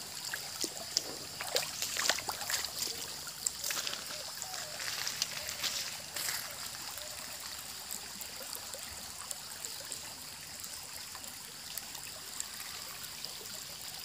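A small, shallow stream babbling and trickling over pebbles and stones, with many small plops and splashes, busier in the first half.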